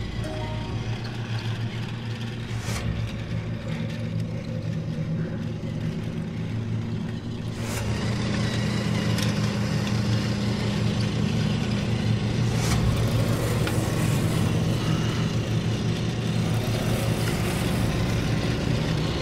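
Battery-powered TrackMaster toy train motor whirring steadily as the engine runs along plastic track, with a few sharp clicks as it passes over track joints.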